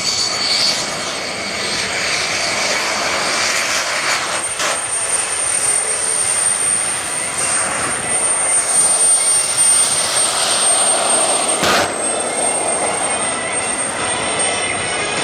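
Homemade gas turbine built from a truck turbocharger, running on a jet kart as it drives: a steady high-pitched turbine whine over a loud jet rush.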